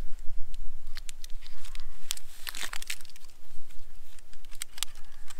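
Paper backing and wrapper of a first-aid dressing crinkling and tearing as it is peeled and handled, a run of irregular crackles and small rips.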